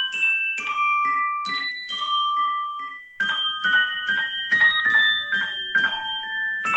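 Music-box theme: a melody of high, bright, bell-like notes, several a second, each ringing briefly, with a short pause about three seconds in.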